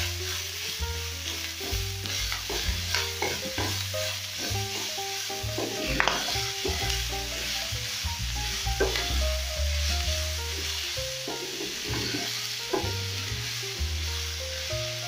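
A spatula stirring tripe, tomatoes and onions in a frying pan, with scrapes against the pan over the sizzle of frying in oil. Soft background music plays underneath.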